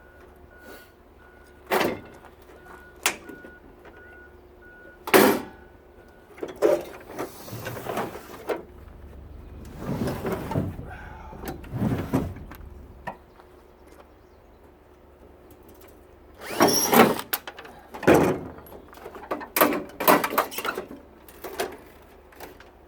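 Scattered clunks, knocks and scraping of a tankless water heater's metal casing being handled as its cover panel is unscrewed and worked loose, with a few longer scraping stretches about ten seconds in and a flurry of knocks near the end.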